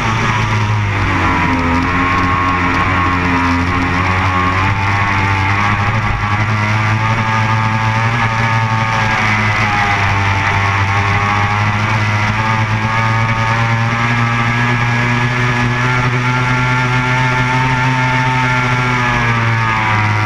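A racing powerboat's engine running at speed, its pitch rising and falling slowly with the throttle. Rock music with electric guitar plays over it.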